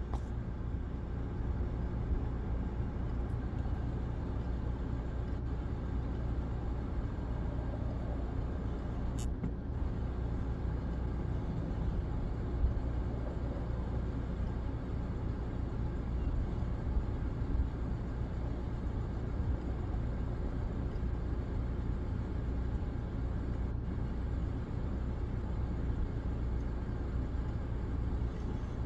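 A vehicle's engine running steadily, a low even hum with a little wind and road noise over it.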